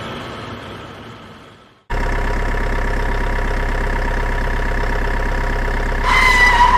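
Semi-truck sound effects: a truck engine fading away, then an abrupt cut to a heavy diesel engine idling steadily with a high whine, and a loud truck horn blast starting near the end.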